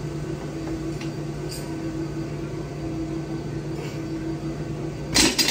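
Steady low mechanical hum, then near the end a loud clatter of metal and weight plates as a loaded trap bar is set down on the gym floor after a deadlift.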